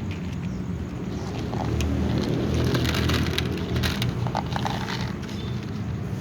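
Cats crunching dry food, a run of sharp crackles and clicks in the middle over a steady low rumble.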